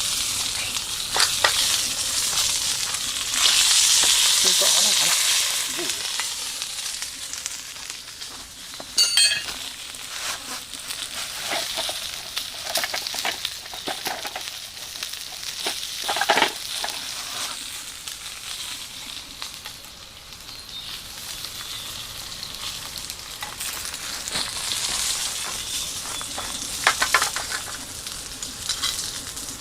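Food sizzling in an iron frying pan, swelling louder about four seconds in, with a few sharp scrapes or knocks of a utensil against the pan.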